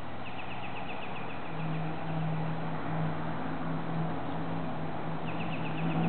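A songbird's rapid trill of repeated short notes, about ten a second, given twice, once near the start and again near the end. Under it runs a steady low engine-like drone that comes in about a second and a half in.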